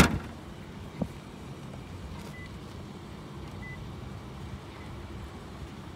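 The rear hatch glass of a 2016 Toyota Highlander shut with one sharp bang, then a fainter click about a second later. After that only a steady low background hum.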